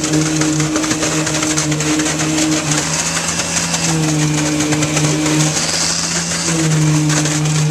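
Concrete pump truck running hard while pumping concrete: a loud, steady diesel engine hum whose pitch shifts slightly up and down a few times, over a broad mechanical hiss.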